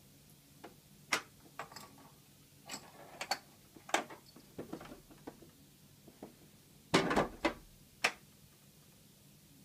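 Plastic cat flap clicking and clattering as a cat noses at it and pushes through: a run of sharp clacks, with the loudest clatter about seven seconds in.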